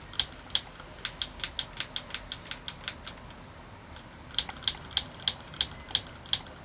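Bicycle trigger shifter clicking through its index positions as the lever is worked repeatedly, with no gear cable fitted yet. Runs of sharp clicks come a few a second, with a pause of about a second past the middle and louder clicks after it.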